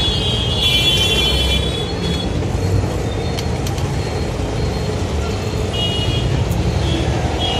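Steady roadside traffic rumble, with a vehicle horn sounding briefly about a second in and again around six seconds.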